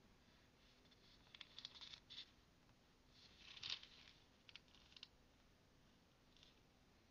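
Thin book pages being handled and turned: soft papery rustles in a few scattered bursts, the loudest about three and a half seconds in.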